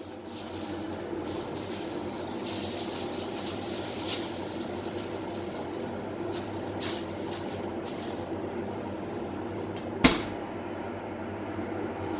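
A steady machine hum, like a kitchen appliance fan running, with some soft rustling in the first few seconds, a couple of small knocks, and one sharp knock about ten seconds in.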